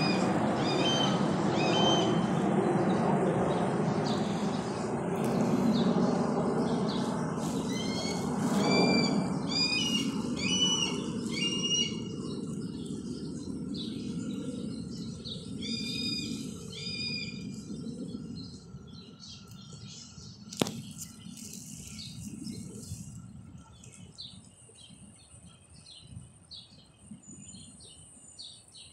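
Small birds chirping in quick series of short, repeated notes, over a low rumble that fades away about halfway through; a single sharp click comes about twenty seconds in.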